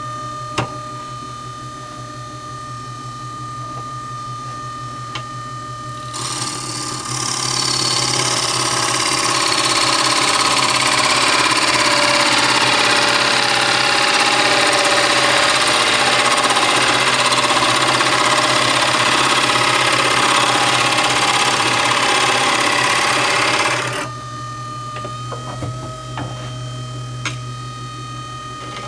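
Wood lathe running with a steady hum while a gouge cuts into a spinning oak blank: a loud, rushing cutting noise starts about six seconds in and stops abruptly near twenty-four seconds, leaving the lathe running on alone. A few sharp clicks sound near the start and near the end.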